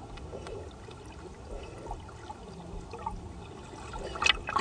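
Water sloshing and gurgling as heard by an underwater camera, with faint scattered clicks and a few louder gurgles near the end.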